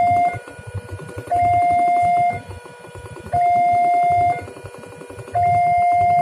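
Railway level-crossing warning alarm sounding a repeating two-note electronic chime: a louder, higher note about a second long alternating with a quieter, lower note, one cycle every two seconds. It signals that the barriers are down for an approaching train.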